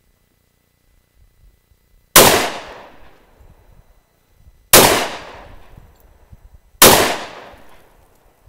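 Three pistol shots from a Glock 23 Gen 3 firing .40 S&W, the first about two seconds in, then two more a couple of seconds apart, each trailing off over about a second.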